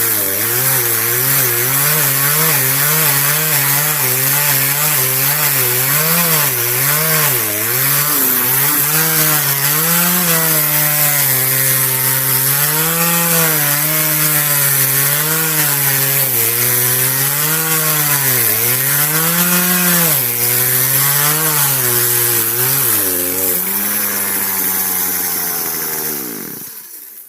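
Chainsaw cutting through a large tree trunk, its engine pitch rising and dipping as the bar loads up in the wood. Near the end the pitch steadies, then falls away as the saw winds down and stops.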